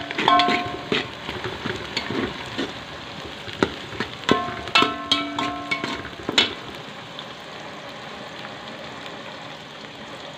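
Sliced onions sizzling in hot oil in a metal pot as they start to brown. A metal ladle stirs them and knocks against the pot, which rings with each hit: a few knocks in the first second and a cluster around the middle, after which only the steady sizzle goes on.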